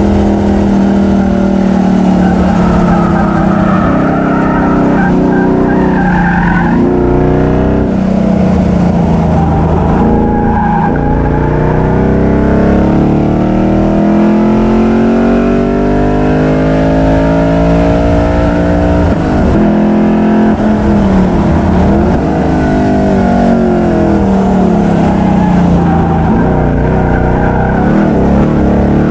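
A modified street car's engine, heard from under the front of the car, pulling hard. Its pitch climbs and drops several times, with one long climb through the middle, as the car is driven hard.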